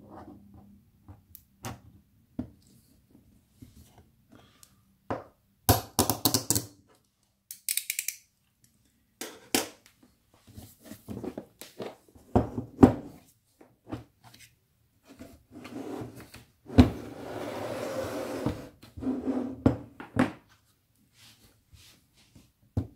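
Hard plastic tool case and cardboard box being handled: a series of knocks and sharp clicks, including the case's plastic latches snapping open. A longer scraping rustle comes a little past the middle.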